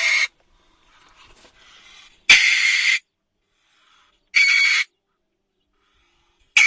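An animal's short, harsh calls repeating about every two seconds, four in all, the last one cut short.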